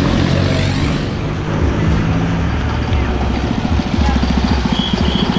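A motor vehicle engine running close by: a low, steady hum that settles into a fast, even throb about three and a half seconds in, with crowd chatter underneath.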